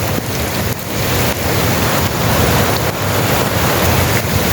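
Heavy rain pouring steadily, with wind rumbling on the microphone.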